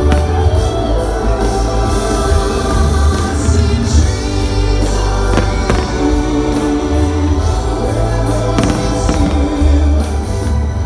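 Music with singing, possibly choir-like, with a heavy bass. A few firework bangs sound over it, the clearest about 4, 5.5 and 8.5 seconds in.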